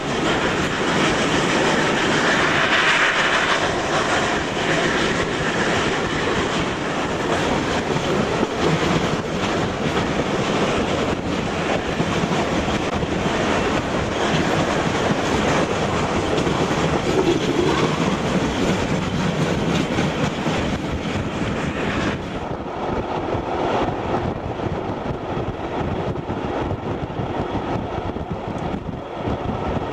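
Steam-hauled passenger train running, heard from a coach window: a steady rumble with the wheels clicking over the rail joints. The sound turns duller about three-quarters of the way through.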